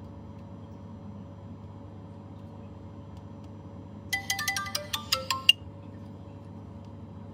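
A quick run of about ten short phone keypad tones, each a brief beep at a different pitch, about four seconds in and lasting about a second and a half, as a number is dialed on the repaired iPhone X. A steady electrical hum runs underneath.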